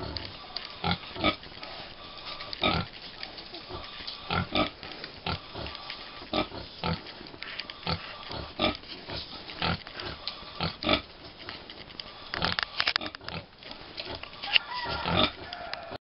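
American Guinea Hog sow and her five-week-old piglets grunting while the piglets nurse: short, irregular grunts about two a second, with a quick run of them and a brief squeal near the end.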